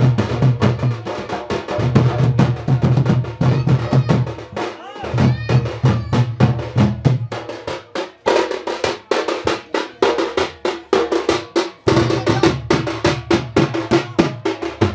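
Folk drums of a Sambalpuri village festival band, struck with sticks in a fast, dense rhythm, with brief lulls around five and eight seconds in.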